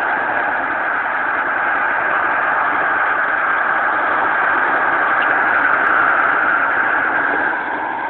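Shortwave radio receiver playing steady noise through its speaker while tuned to the shortwave band, a dense rushing static with no signal. It drops slightly in level shortly before the end.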